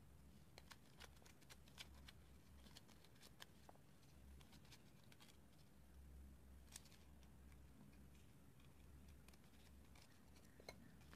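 Near silence, with faint scattered ticks and rustles of paper being handled and folded, over a low steady hum.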